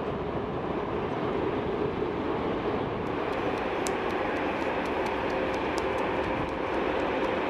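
Jet airliner engines at low taxiing thrust: a steady, continuous rumble with a held tone, changing slightly in character about three seconds in.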